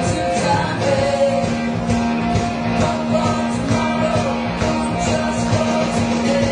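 Classic rock song with singing and a steady beat, played loud.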